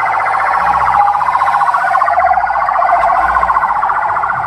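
Ambulance siren sounding a fast, warbling wail as the ambulance drives past.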